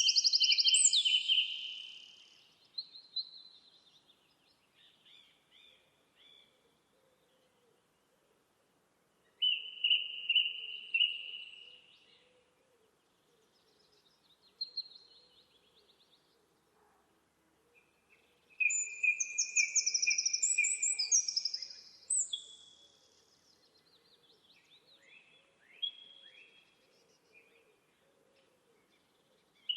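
A songbird singing in three bursts of high, rapid trilled phrases, the first at the start, then about ten and about nineteen seconds in, with scattered fainter chirps between.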